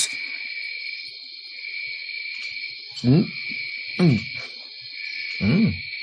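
Cartoon jungle ambience: a steady high insect-like buzz, with a few short, low hoot-like calls that slide down in pitch.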